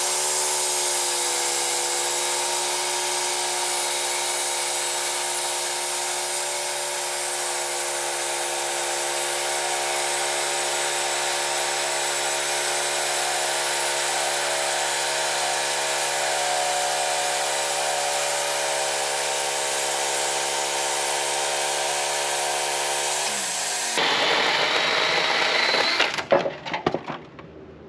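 Band sawmill running steadily as its blade cuts through a small maple log, a steady machine note with a high hiss over it. About twenty-three seconds in the pitch drops and the sawing stops, followed by a few sharp knocks near the end.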